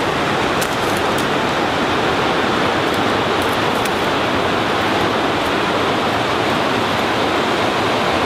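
Steady rush of running water, with a few faint clicks over it.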